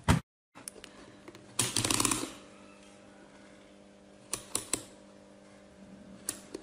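A power supply's mains transformer hums steadily once energised. Over it come clicks and handling noise as a digital multimeter's rotary selector is turned, with a short cluster of clicks about four and a half seconds in.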